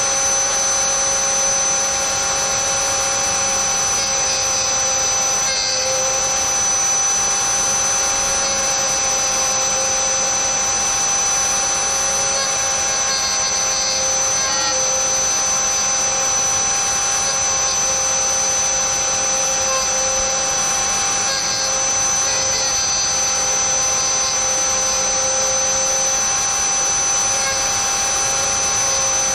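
Dremel rotary tool running at high speed with a small end-mill bit, milling slots in a hard PVC sheet: a steady high whine made of several constant tones, with cutting noise that rises and falls as the bit is fed through the plastic.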